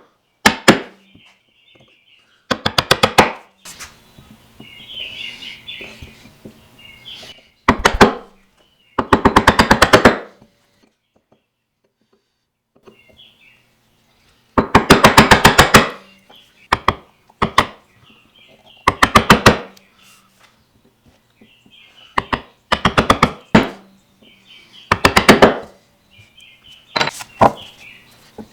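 A hand tool worked in short strokes against walnut, each stroke a quick burst of rapid clicking scrapes, repeated a dozen or so times with short pauses. Faint bird chirps can be heard between the strokes.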